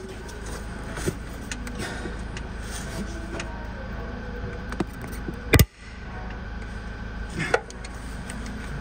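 A screwdriver clicking and knocking against metal engine parts while being worked in behind a sprocket to find a locking point: a few scattered light taps and one sharp knock just past the middle, over a steady low background hum.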